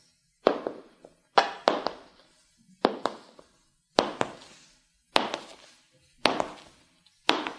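High-heeled shoes walking slowly on a hard floor, one step about every second. Each step is a sharp double click with a short echoing tail.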